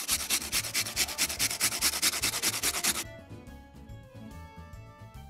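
Fresh ginger root rubbed hard against a metal grater: fast, even rasping strokes, several a second, that stop abruptly about three seconds in. Soft background music goes on underneath and is left alone after the grating stops.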